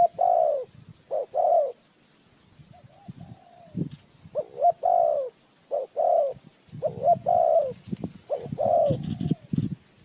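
Spotted dove cooing: phrases of short, arched coo notes, a run of three at the start, then a pause of about two seconds, then a longer run of phrases. This is the call that trappers use to lure wild doves.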